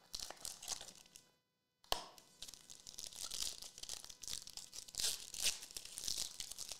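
Panini Obsidian Soccer trading-card box opened with rustling, a single sharp click about two seconds in, then the card pack's shiny wrapper torn open and crinkling.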